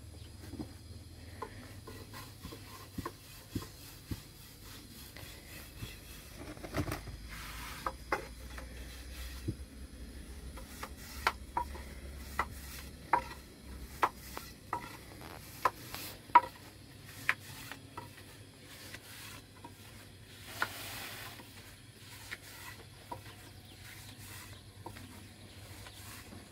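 Hand-making flatbread with a long thin wooden rolling pin: the pin rolls and rubs over the dough and board, with many separate sharp wooden taps and knocks, thickest in the middle.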